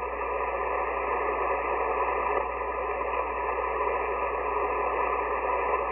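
Steady static hiss from an amateur HF transceiver's speaker on the 75-metre phone band, heard between transmissions, held within the narrow voice band of the receiver. A steady low hum runs beneath it.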